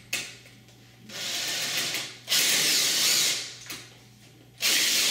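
Cordless drill-driver driving a screw into a uPVC window sash, running in three bursts, the second the loudest.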